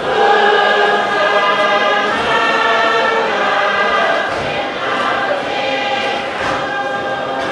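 A large group of voices singing a Tuvaluan fatele together in full chorus. The singing steps up in loudness right at the start and then holds steady.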